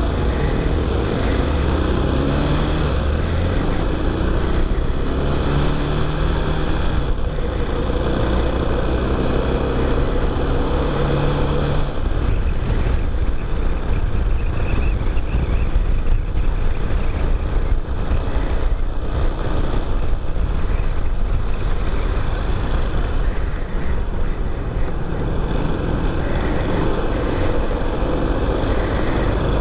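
A Chinese-made motorcycle's engine pulling away and accelerating through the gears, its pitch climbing several times over the first twelve seconds or so. After that a steady rushing noise, wind over the microphone at riding speed, covers the engine.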